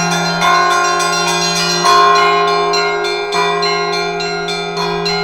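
Russian Orthodox church bells rung by hand in a traditional zvon: small high bells struck in a rapid pattern, a heavier bell struck four times about a second and a half apart, and the deep hum of a large bell sounding underneath.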